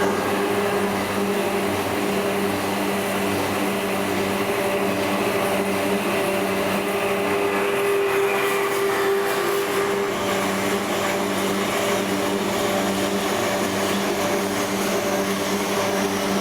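Asada Beaver 4F Eco band saw running: a steady motor hum with several constant tones under a noisy whir.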